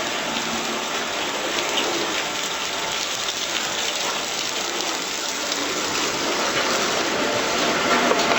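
Water spraying from the jets of an automatic train-washing plant, a steady rushing hiss.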